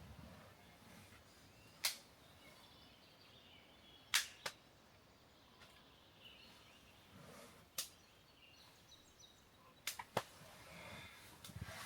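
A series of sharp, short knocks or clicks, about six in all, spaced irregularly with two close pairs, over faint bird chirps.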